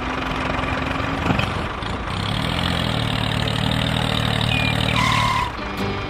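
A tractor engine running steadily, with a single knock about a second in; the engine sound cuts off suddenly near the end.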